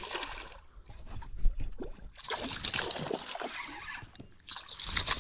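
Water sloshing and splashing in uneven surges, with a sharper knock about a second and a half in.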